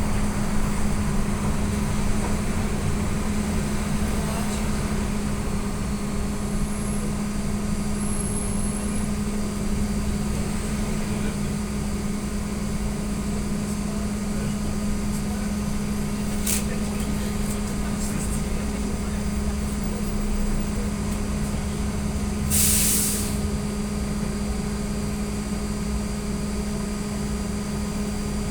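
Cabin noise of an AKSM-321 trolleybus under way: a steady electric hum from the traction drive over low road rumble. About three-quarters of the way in comes a short hiss of compressed air from the pneumatic system.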